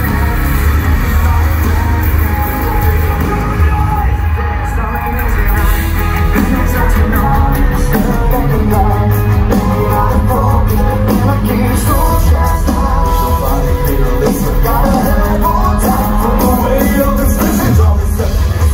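Live metalcore band playing loud, with vocals over electric guitar, bass-heavy low end and drums.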